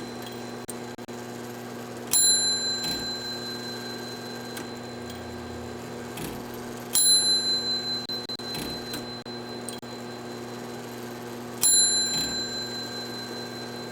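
Small clock bell struck three times by the strike hammer, about five seconds apart, each stroke ringing and fading away; fainter mechanism clicks fall between the strokes.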